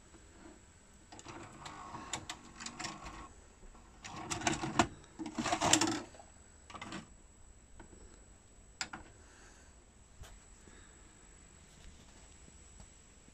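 Panasonic NV-HD675 VHS recorder's tape mechanism whirring and clattering as it unthreads and ejects the cassette, in two stretches between about one and six seconds in. A few light clicks follow.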